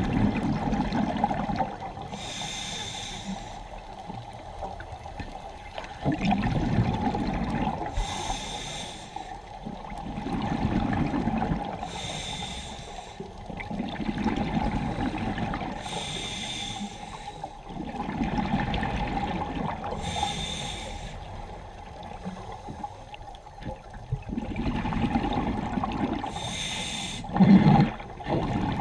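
Scuba diver breathing through a regulator underwater: a short hissing inhale through the demand valve, then a longer bubbling exhale, repeating about every four seconds.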